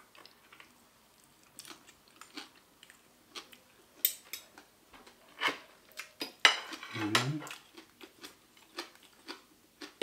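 Fork and spoon clicking and scraping against a plate while eating, in scattered sharp clinks. A short hum from a voice comes about seven seconds in.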